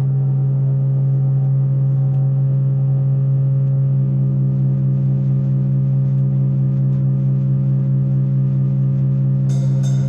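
Electronic keyboard drone: a low note held steadily, with a second, higher note joining about four seconds in. Just before the end, a fast, even ticking beat starts over it.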